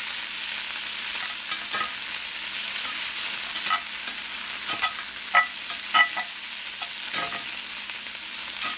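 Diced onions and curry powder sizzling in a hot cast-iron skillet, stirred with a spatula that scrapes across the pan now and then, loudest about five and six seconds in.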